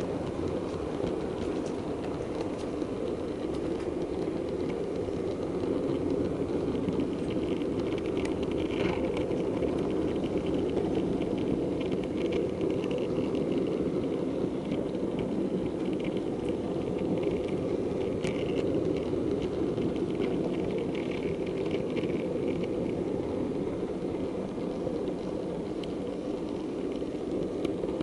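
Model railway diesel multiple unit running along the track, a steady rumble of the model's motor and wheels on the rails, with scattered light clicks over rail joints and pointwork.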